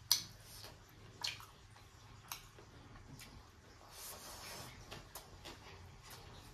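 Wet, sticky squelches and clicks of rice and pork gravy eaten by hand, as fingers work the food on the plate and carry mouthfuls to the mouth. The sharpest click comes right at the start, followed by a few more about a second apart.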